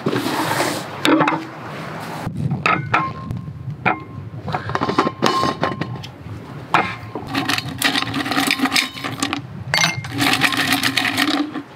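Glassware knocking and clinking on a wooden table, a few clinks ringing briefly, then ice cubes rattling as a hand scoops them out of a stainless-steel insulated ice container in the last few seconds.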